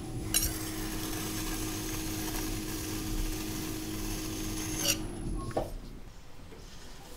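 Metal knife blade scraping clay at the base of a pot turning on a potter's wheel: a steady rasp over a faint steady hum, stopping about five and a half seconds in.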